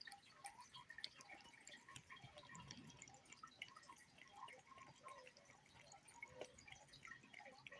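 A cat lapping soup: faint, quick, irregular wet clicks of its tongue in the liquid.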